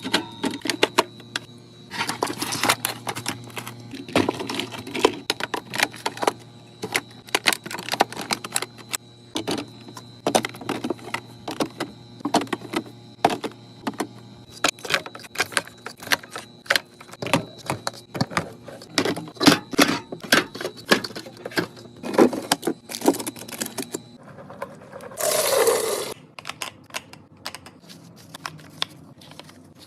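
Quick irregular clicks and clatter of drink cans, bottles and containers being handled and set down while restocking a mini fridge. A faint steady hum sits behind them until an abrupt change about 24 seconds in, followed by a short rush of noise and sparser clicks.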